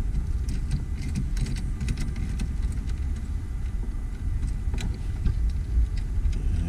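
Scattered light metallic clicks of a hand tool loosening the 10 mm nuts on the car battery's cable terminals, over a steady low rumble.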